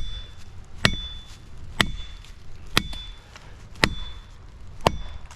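Six evenly spaced hammer blows, about one a second, driving a felling wedge into the back cut of a white oak that has hung up on its hinge. Each blow has a short metallic ring.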